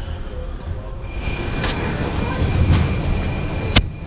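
Steady low rumble of a parked airliner at the gate, with a steady high whine that comes in about a second in. Three sharp clicks fall about a second apart.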